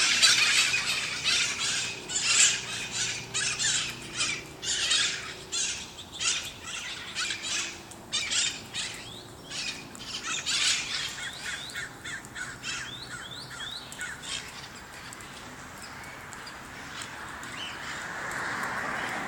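A flock of parrots squawking with harsh, rapid, overlapping calls, dense for the first ten seconds and thinning out after that. A steady rushing noise builds near the end.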